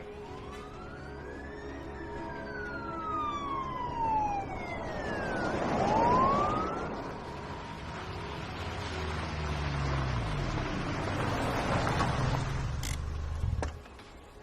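Siren wailing, its pitch sweeping slowly up and down, with a rush of noise swelling to its loudest about six seconds in. A low engine rumble follows and cuts off abruptly near the end.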